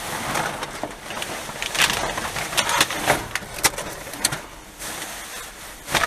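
Plastic garbage bags and the rubbish inside them rustling and crinkling as they are handled and pulled open, with many sharp crackles of plastic packaging.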